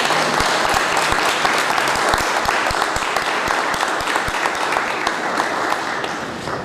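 A small gathering applauding with many hands clapping, dying away near the end.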